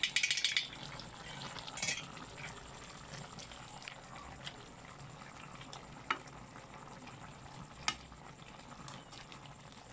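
A pot lid clatters as it is lifted off, then chicken stew simmers in the open pot with a soft, steady bubbling hiss. A ladle clicks sharply against the pot twice near the end.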